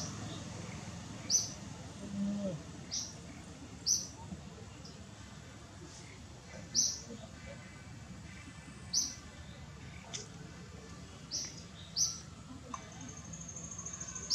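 A bird calling with short, high chirps repeated every second or two over faint outdoor background noise. Near the end a thin, steady high tone joins in.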